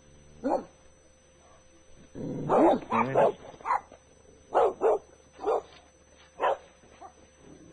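Dog barking repeatedly: a single bark, then a louder run of several barks about two seconds in, then single and paired barks about once a second.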